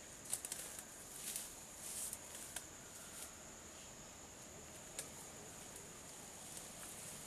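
Faint rustling of grass and brush, with a few soft crackles scattered through, over a steady high hiss.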